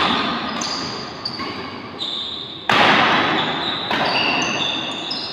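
Badminton rackets striking a shuttlecock in a doubles rally: several sharp hits about a second apart, the loudest about two and a half seconds in, each ringing on in a large hall. Short high squeaks, as of court shoes on the floor, sound between the hits.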